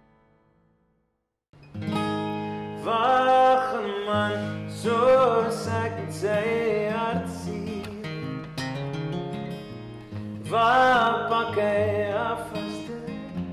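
Acoustic guitar strummed with a man singing over it, starting suddenly after about a second and a half of silence; the singing comes in short phrases between the guitar chords.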